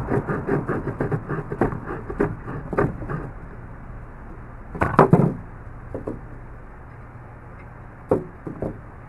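Small multitool folding saw blade rasping back and forth through a knot in wood, about five quick strokes a second, stopping about three seconds in. Then a few knocks of the tool and wood being handled, the loudest about five seconds in.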